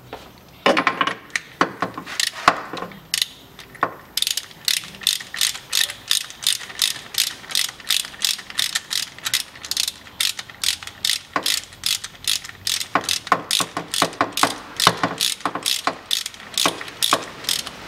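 Ratchet wrench clicking as the fill plug on the rear differential is tightened: a few irregular knocks at first, then a long run of evenly spaced clicks, about two to three a second, briefly fainter in the middle.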